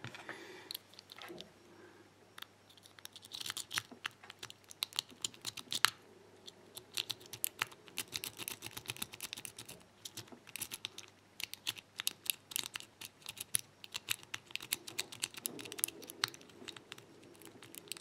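A rake pick scraping in and out of the keyway of a Burg Wächter Look aluminium padlock under light tension, a fast run of small metallic clicks and scratches as it rattles over the pin stacks, in bursts with short pauses.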